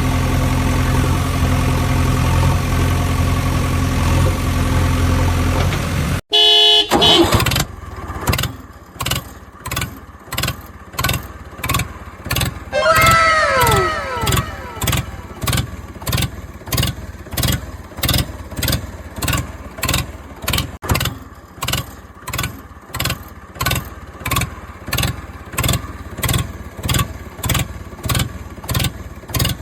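Steady engine-like hum, cut off about six seconds in. A horn-like blast follows, then a regular pulsing sound at about one and a half beats a second, with a few falling whistle tones in the middle.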